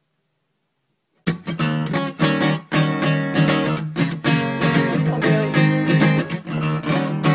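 Silence for about a second, then an acoustic guitar cuts in suddenly, strummed and picked in a steady run of chords and notes.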